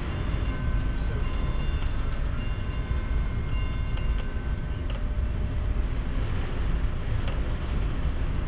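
Gale-force wind buffeting the microphone aboard a Great Lakes freighter in heavy seas, a steady low rumble. Through the first half, faint thin high tones and a few sharp ticks sound over it.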